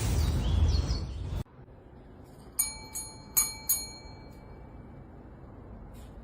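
A small bell struck four times in quick succession, each strike ringing out, after about a second and a half of loud rumbling noise that cuts off abruptly.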